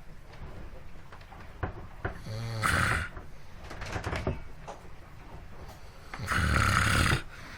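Snoring: a short rasping snore about two and a half seconds in, then a longer, louder snore near the end.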